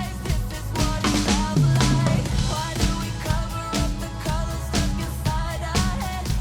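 Pop song with a prominent drum kit playing a steady beat of kick and snare hits over the backing track.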